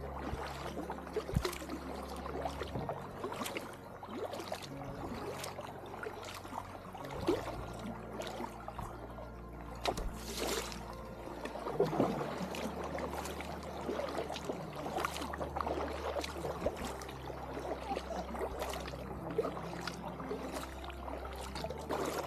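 Kayak paddling on calm water: a double-bladed paddle dipping in stroke after stroke, with splashes and water trickling off the blades.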